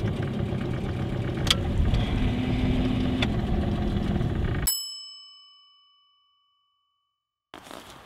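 A steady low rumble with a few clicks cuts off abruptly about four and a half seconds in, as a single bell-like ding rings out and fades over about two seconds into dead silence. Faint outdoor background returns near the end.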